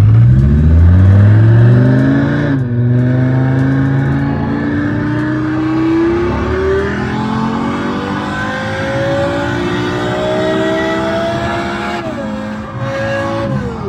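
Synthetic V10 engine sound from the RevHeadz app, played through the car's stereo speakers inside the cabin as the car accelerates. The pitch rises quickly, drops at an upshift about two and a half seconds in, then climbs slowly for most of the rest before dropping again in two steps near the end.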